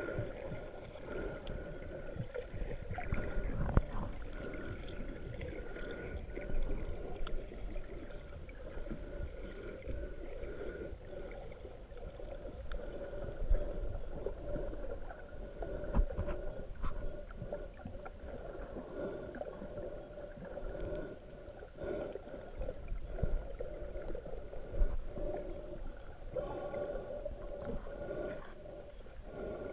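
Muffled underwater sound of shallow seawater moving over a rocky bottom, heard with the microphone submerged: a low churning rumble under a steady hum, with a few sharp knocks.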